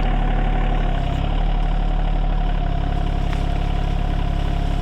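Rural King RK24 compact tractor's engine running steadily while its backhoe is worked, with a thin steady whine above the engine note.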